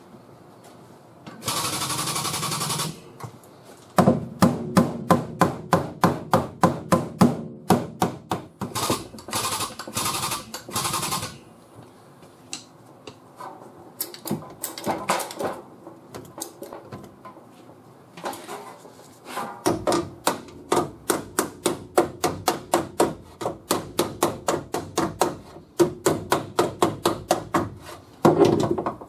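A body hammer beating on steel car sheet metal in quick runs of sharp blows, about four a second, with short pauses between the runs. A brief burst of steady noise comes just before the first run.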